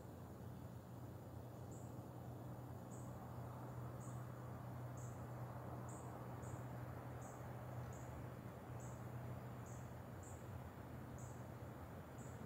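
A cricket chirping, short high chirps about once a second, over a faint steady low hum.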